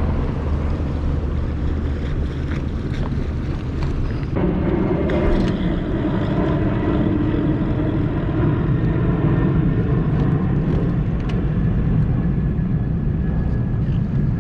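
Bass boat outboard motor running steadily at low speed, its note and level rising a little about four seconds in.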